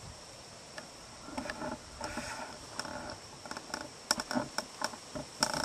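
Insects calling steadily in the background, a constant high tone. From about a second in, a run of irregular soft clicks and rustles comes from the camera being handled and moved.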